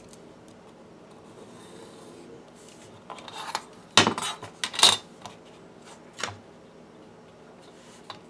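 Metal rulers and a steel square being handled on a cutting mat: a short scrape about three seconds in, then two sharp clacks a second apart as metal is set down, a smaller knock a little later and a faint click near the end.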